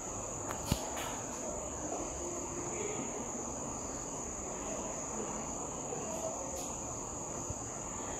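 A steady high-pitched background whine or trill over low room noise, with a single sharp click under a second in.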